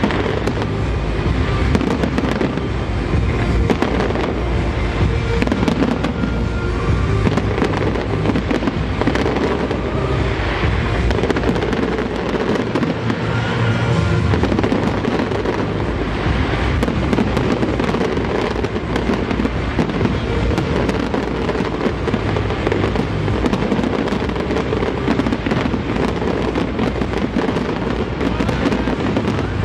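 A large professional fireworks display at full barrage: rapid bangs and crackles overlap continuously without a pause.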